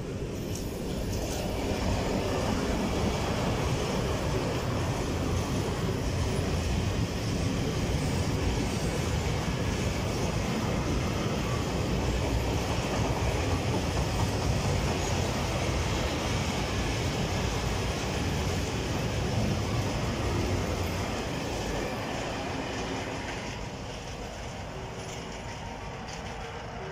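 Freight train of flatcars loaded with silo containers rolling through a level crossing, its wheels clacking over the rail joints. The noise builds about a second in, holds steady and fades away near the end. Under it the crossing's AWD 2000 warning bell keeps ringing as a steady tone, heard more clearly once the train has gone.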